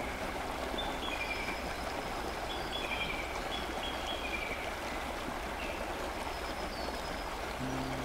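Steady rushing of a forest river flowing over rocks and shallow rapids, with short high bird chirps about once a second. Low, sustained background music notes come back in near the end.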